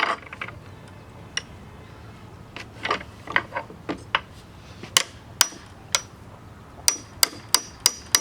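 Sharp metallic clinks and knocks of an adjustable wrench working on a large bolt of a power steering pump held in a vise. They are irregular at first; near the end they come about three a second, each with a short metallic ring.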